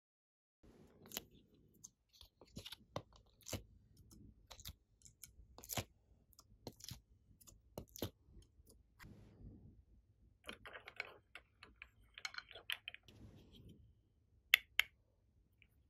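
Plastic ice cube tray clicking and crackling as fingers flex it and pop pieces of clay out of its cups: a busy run of small sharp clicks with stretches of crinkly rustling, and two louder clicks near the end.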